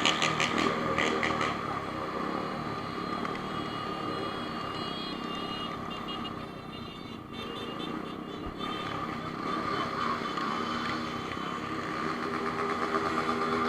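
Honda CB1000 inline-four motorcycle engine running steadily, loudest at the start, quieter through the middle and louder again near the end.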